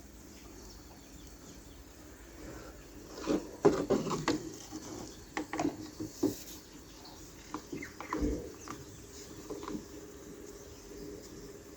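Small plastic toy pieces being handled and fitted together: a quick cluster of sharp clicks and taps about three seconds in, then scattered lighter taps.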